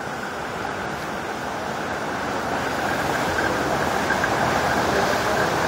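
Heavy rain and strong wind in a severe storm: a dense, steady rushing hiss that grows slightly louder.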